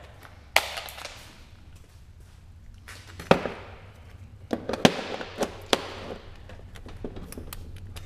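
Scattered clicks and knocks of hand tools being picked up and handled on a workbench, including a plastic bit case and a cordless impact driver, with a cluster of clatter about five seconds in. A steady low hum runs underneath.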